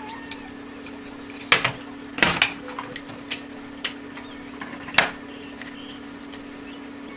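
Sharp plastic clicks and cracks, about half a dozen, the loudest a cluster a little over two seconds in, as a small plastic 12 V computer cooling fan is pulled apart by hand and its hub and blades come free of the frame. A steady low hum runs underneath.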